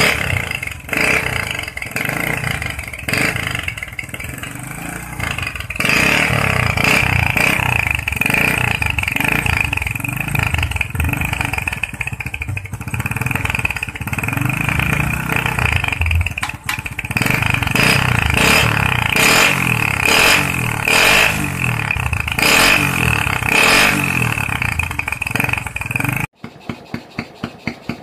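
Honda C-series single-cylinder four-stroke motorcycle engine running through an aftermarket kleper exhaust with a duck-neck header pipe, its revs rising and falling in repeated blips. The sound drops away abruptly near the end.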